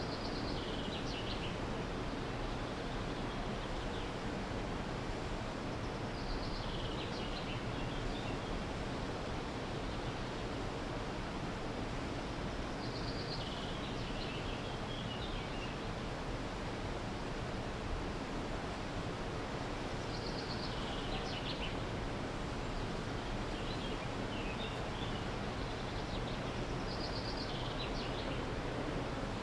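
Steady outdoor hiss with a songbird singing the same short, high phrase about every seven seconds, five times.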